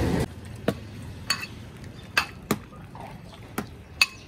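A metal ladle clinking against a big cooking pot and a ceramic bowl as paya broth is served: about six sharp, irregular clinks with a short ring, the loudest near the end.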